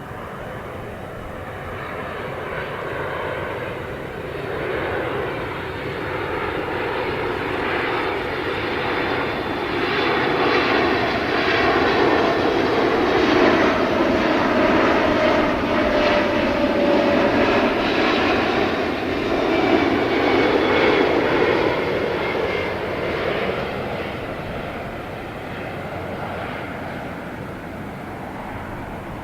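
Jet airliner's engines passing by, the roar and whine building to a peak about halfway through and then fading away, with the whine dropping slightly in pitch as it goes by.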